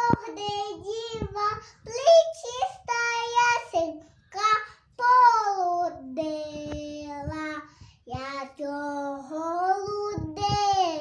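A young girl singing a Ukrainian Christmas carol (koliadka) unaccompanied, one high child's voice moving through long held and sliding notes with short breaths between phrases.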